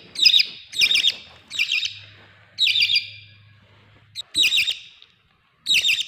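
Young hand-fed Australian parrot chick squawking about six times, a second or more apart. These are its noisy begging calls for food.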